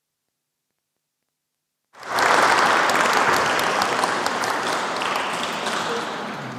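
An audience applauding: clapping breaks in abruptly about two seconds in after dead silence. It is loudest at first and eases slightly before cutting off at the end.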